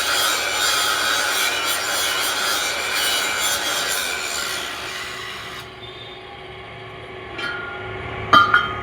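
Abrasive rasping of a tool working metal, steady for about five and a half seconds before it stops. Near the end come two sharp metallic clanks that ring briefly.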